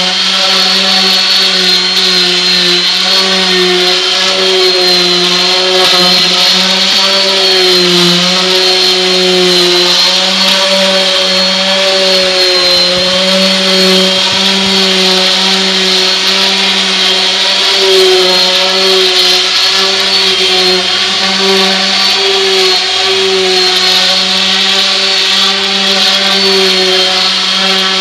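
Electric orbital palm sander running steadily while sanding wood. Its motor hums with a slight waver in pitch, over the hiss of the pad rubbing the surface.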